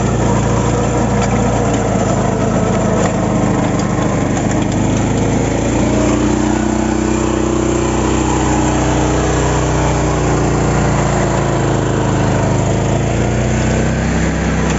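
A 12 hp mini tractor's engine running steadily under load as it pulls a rear rotary tiller through soil, its pitch wavering a little through the middle.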